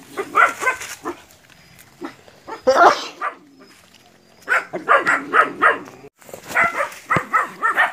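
Several puppies yapping and barking in quick, overlapping bursts of high-pitched yelps, with a short lull about halfway through.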